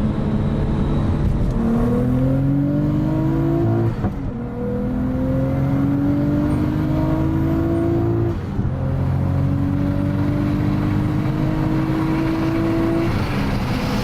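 Nissan RB25 turbocharged straight-six pulling hard under load, its revs climbing three times with two quick gearshifts between, then lifting off near the end. It runs cleanly through the pull with no misfire, a sign that the new coil packs have fixed the misfire under boost.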